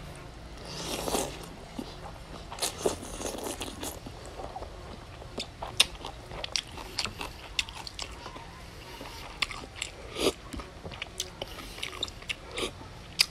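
A man slurping a mouthful of noodles about a second in, then chewing with many wet mouth smacks and clicks; near the end he sips a spoonful of broth.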